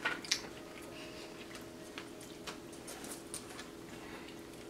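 Scattered light clicks and crackles of snow crab shells being handled and lifted from a tray, with a cluster of sharper clicks in the first half-second, over a steady low hum.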